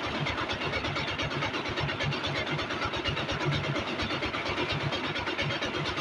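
Concrete mixer's small stationary diesel engine running steadily with an even, rapid beat.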